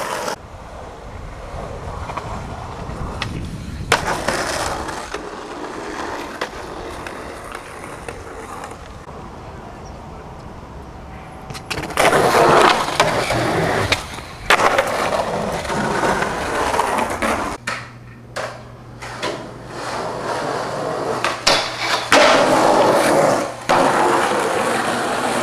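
Skateboard wheels rolling on concrete, broken by the sharp clacks of boards popping and landing, across several short clips cut one after another.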